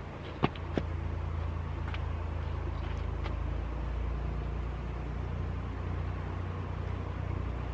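A vehicle engine running steadily, a low even hum. Two sharp clicks sound close together about half a second in.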